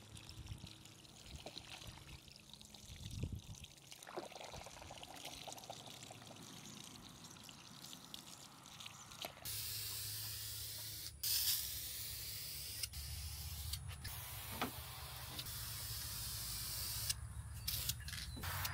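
Water from a garden hose splashing over plastic bumper trim pieces as they are rinsed. About nine seconds in, an aerosol can of trim and bumper paint starts hissing, in long passes with short breaks between them, as the trim is painted.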